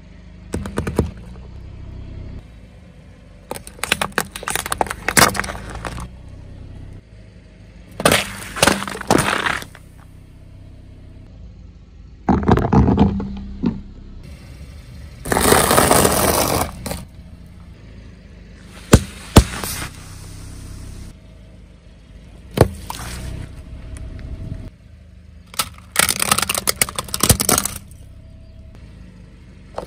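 A car tyre rolling over and crushing plastic objects one after another: repeated bursts of crunching, cracking and popping, each lasting up to a couple of seconds, over a steady low rumble from the car.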